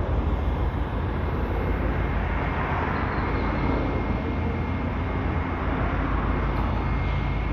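Steady low background rumble with a faint, steady high tone and no distinct events.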